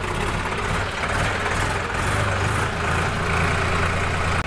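Sonalika 39 HP tractor's diesel engine running steadily under way, heard from the driver's seat.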